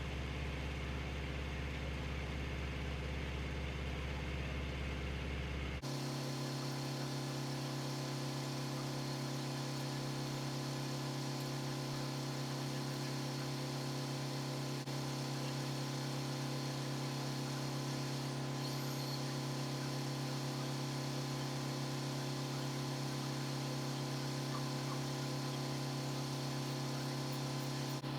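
The sawmill's engine runs steadily with an even hum. Its tone shifts suddenly about six seconds in and then holds steady again.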